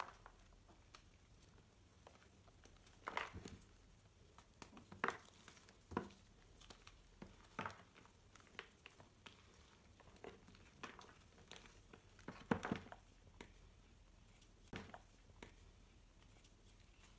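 Reformed gym chalk crushed by hand, crunching and crumbling in irregular bursts of dry crackles, with the loudest crunches about three seconds in and again about twelve seconds in.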